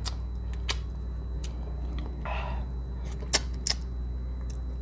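Close-miked eating sounds as milkfish is eaten by hand: a few sharp wet mouth clicks and lip smacks, with a short breathy sound about two seconds in. A steady low hum lies underneath.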